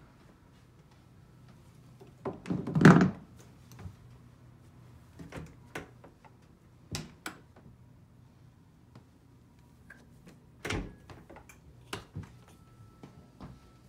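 A door being handled: a loud thunk about three seconds in, then scattered lighter knocks and clicks.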